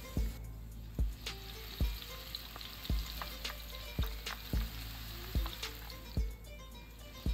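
Hot oil sizzling steadily in a frying pan as pakoras deep-fry, with battered leaves dropped into the oil partway through. Background music with a thumping bass beat about once a second is louder than the sizzle.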